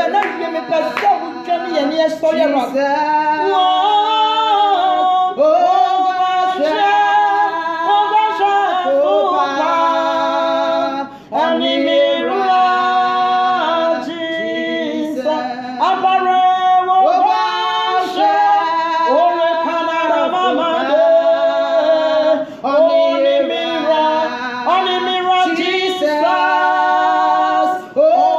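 Two women singing a worship song together, unaccompanied, in long held notes with vibrato.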